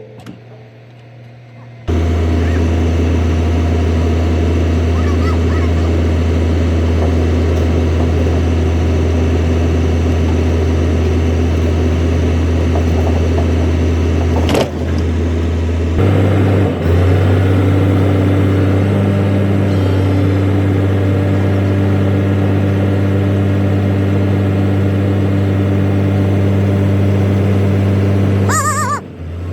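A large engine running steadily at a constant speed, a loud low hum. It starts abruptly about two seconds in, shifts slightly in pitch about halfway through, and cuts off near the end.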